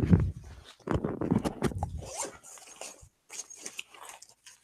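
A backpack is put down with a heavy thump, followed by knocks and fabric rustling as it is opened and rummaged through.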